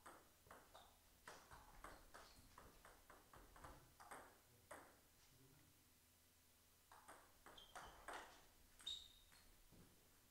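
Two table tennis rallies: the ball clicks sharply off the paddles and the table in quick alternation. A pause of about two seconds separates the rallies.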